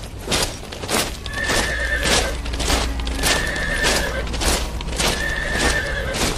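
Horses neighing and hooves clip-clopping over music with a steady beat, about two knocks a second, and a low rumble underneath; a held high tone comes three times, about two seconds apart.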